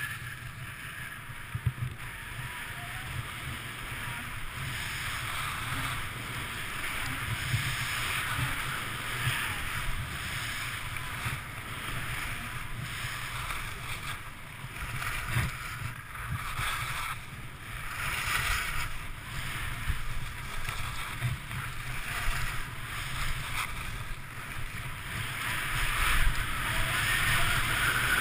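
Skis hissing and scraping over packed snow on a downhill run, with wind rumbling on the camera's microphone. The sound swells and fades with the turns and grows louder near the end.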